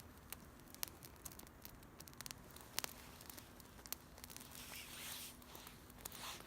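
Wood campfire crackling, with sharp pops at irregular intervals.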